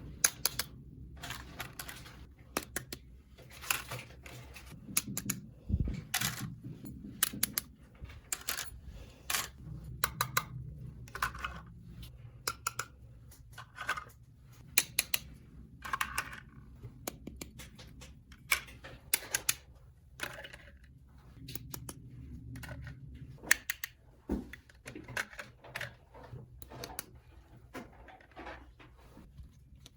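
Small plastic toy pieces being handled and set down: many irregular light clicks and taps.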